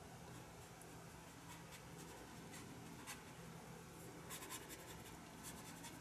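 Faint scratching of a watercolour paintbrush stroking and dabbing on watercolour paper, in short clusters of light strokes, over a low steady hum.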